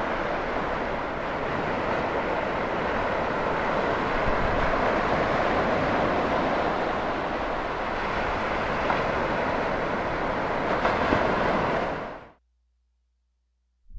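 Steady rush of ocean surf breaking on the beach, fading out about twelve seconds in.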